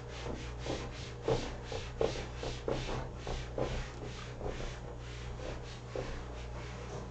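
Whiteboard eraser rubbed back and forth across the board, wiping off marker writing in quick strokes, about three a second.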